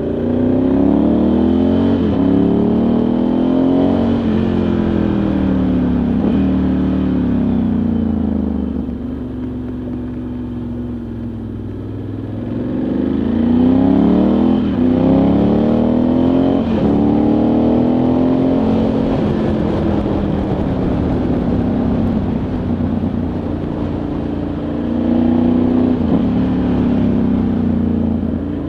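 Ducati Multistrada 1100S's air-cooled L-twin engine under way, accelerating through the gears: its pitch climbs and drops sharply at each upshift, about three times early on and twice more about halfway through. Between these it settles into steadier cruising, quieter for a few seconds around a third of the way in, with one more brief rise and fall near the end.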